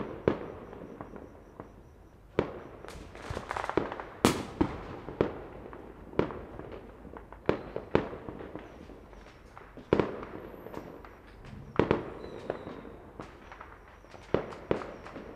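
Fireworks and firecrackers going off: a string of sharp bangs at irregular intervals, each trailing off in an echo, with a burst of crackling about three to four seconds in.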